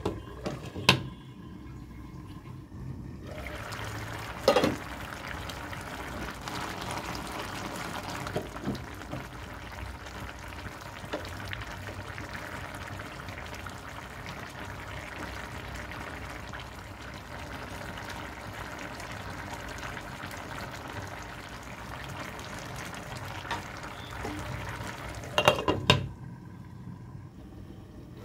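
Cauliflower, potato and eggplant curry simmering in a pan, a steady bubbling hiss with the odd spatula tap or scrape. A glass lid clinks against the pan at the start and again near the end; while the lid is on, the bubbling is dulled.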